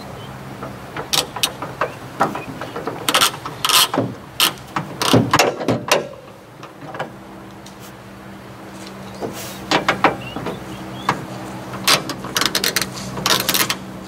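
Hand tools working a small nut on metal: irregular ratchet clicks and metal clinks, in clusters with a lull about halfway through, over a steady low hum.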